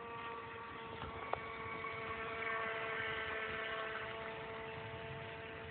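A small RC speed boat's brushed electric motor running with a steady whine, with a single click about a second and a half in.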